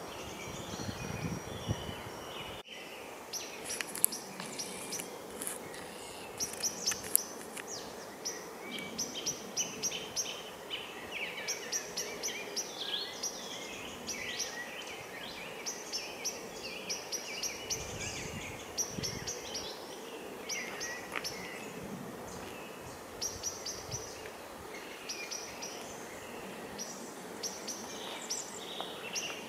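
Small songbirds chirping and singing, with quick runs of short high notes repeating over and over. A low rumble in the first couple of seconds stops abruptly.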